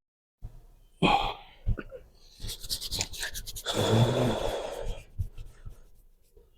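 A person breathing deeply on cue, with long, heavy, hissing breaths and a short voiced groan about four seconds in.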